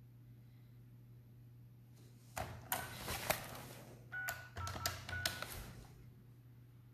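A quick run of clicks and taps with a few short beeps, starting about two and a half seconds in and lasting some three seconds, over a steady low hum.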